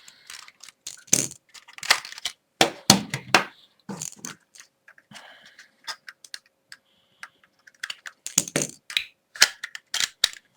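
Irregular plastic clicks, cracks and knocks of smoke detectors being handled and their mounting brackets twisted off.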